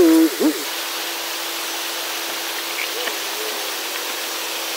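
Rushing creek water, a steady hiss of water pouring over rocks, with a faint steady hum under it. A voice goes "ooh" at the very start.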